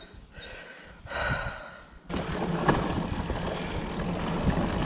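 Specialized Turbo Levo electric mountain bike riding down a woodland dirt trail: steady rolling noise of tyres on dirt and leaf litter, with occasional sharp knocks as the bike rattles over bumps. It starts abruptly about two seconds in, after a quieter stretch.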